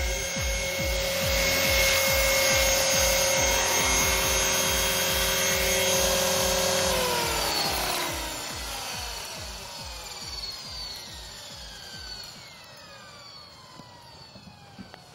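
Thunder Tiger Mini Titan electric RC helicopter's motor and gears whining steadily over the beat of the main rotor. About seven seconds in the power is cut, and the whine falls in pitch and fades as the rotor spools down.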